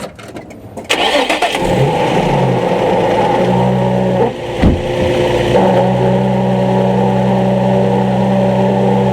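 A 2003 Nissan 350Z's V6 engine cranks and catches about a second in, then idles with a steady squeal-like whine over the engine note, broken briefly around the middle. The squeal comes with the clutch pedal pressed down and is what the owner takes for a failing throwout bearing.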